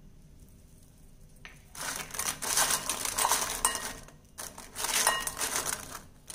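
Fried idli fingers rustling and scraping against a bowl as a hand tosses them in masala powder. It comes in two spells of scratchy clinking, starting about two seconds in, with a brief pause a little after four seconds.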